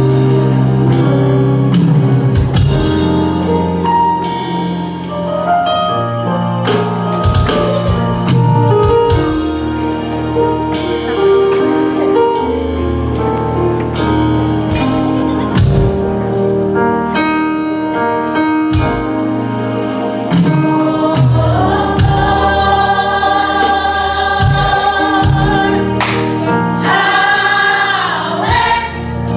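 Live gospel music: a choir singing over a band with bass and drums.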